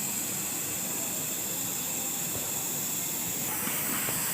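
Steady hiss whose tone changes about three and a half seconds in, with a few faint light taps.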